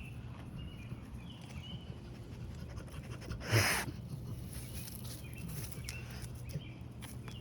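A senior dog breathing and sniffing close by, with one short, loud, breathy burst about three and a half seconds in.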